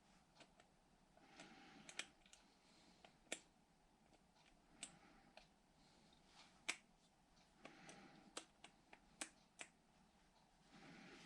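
Faint, scattered light clicks and taps of small metal carburetor parts and tools being handled during reassembly, about a dozen over the stretch, against near silence.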